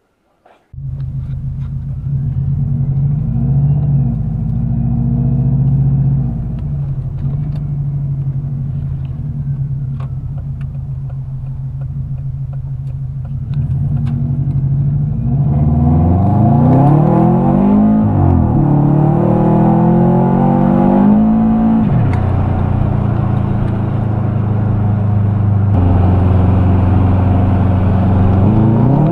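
Turbocharged Subaru EJ205 flat-four heard from inside the car, running steadily at first, then accelerating hard in Drive. Its revs climb and fall sharply twice as the 4EAT automatic, fitted with a RatioTek valve-body shift kit, upshifts through the gears.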